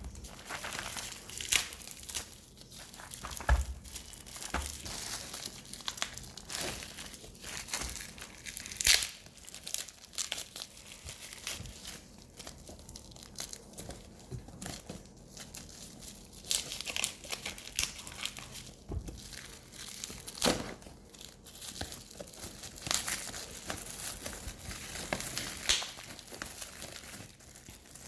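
Parcel packaging being crinkled and torn open by hand: irregular rustling with sharp crackles throughout.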